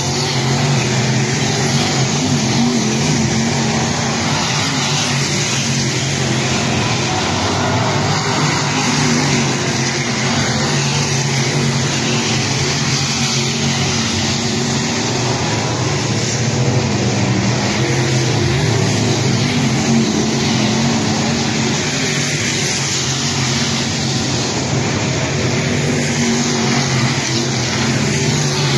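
A pack of dirt late model race cars at racing speed, their V8 engines making a continuous loud drone whose pitch wavers and shifts as cars go by.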